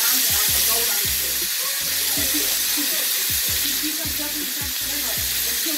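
Pork steaks sizzling in a frying pan, a steady hiss of frying fat. Background music with a steady beat runs underneath.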